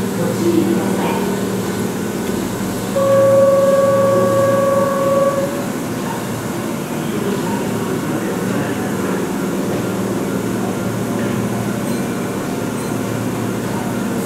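Keihan 2600-series electric train standing at a station platform, humming steadily. About three seconds in, a loud steady single-pitched tone sounds for about two and a half seconds.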